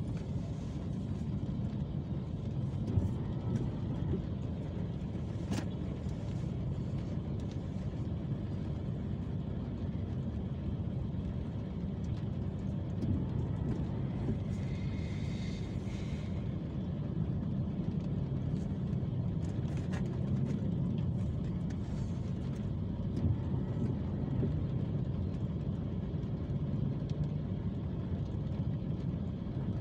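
Road traffic idling at a red light, heard from inside a car: a steady low engine rumble from the surrounding motorcycles and cars, with occasional light ticks and a brief higher tone about halfway through.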